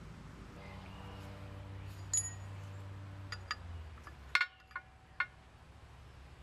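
Steel chisel clinking against a sawn exhaust pipe nipple held in a vise: several light metallic clinks with short ringing, the loudest about four and a half seconds in. A low steady hum underneath stops about four seconds in.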